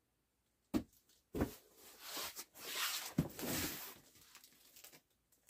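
Cardboard shipping box being picked up and handled: two sharp knocks about a second in, then a few seconds of cardboard scraping and rustling with another thump partway through.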